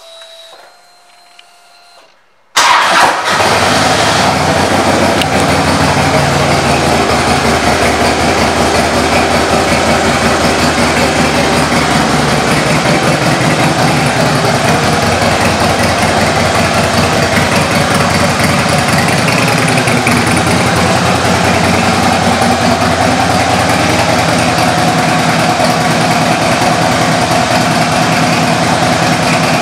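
2001 Harley-Davidson Softail Deuce's Twin Cam 88B V-twin, breathing through aftermarket Vance & Hines exhaust, comes in suddenly about two and a half seconds in and then idles steadily and loudly.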